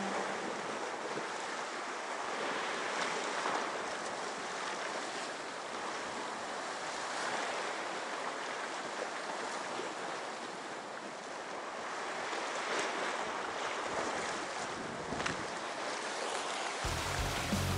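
Sea waves washing against a rocky shore, a steady hiss of surf. Music comes in near the end.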